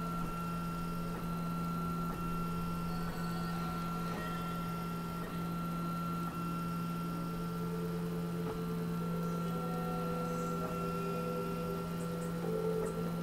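RepRap Prusa-Mendel 3D printer printing, its stepper motors whining in steady tones that shift in pitch about halfway through as the X carriage moves on its PTFE bushings, over a constant hum. Faint ticks come about once a second.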